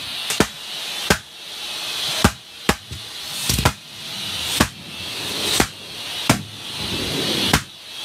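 Latex balloons bursting one after another as a shop vac sucks them in, about nine sharp pops at uneven intervals of roughly a second. Under them the shop vac and an air pump make a steady rushing hiss that swells between the pops.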